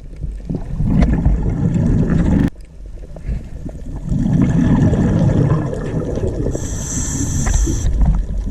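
Sea water surging in two low swells that build and fall away, with a brief high-pitched sound about seven seconds in.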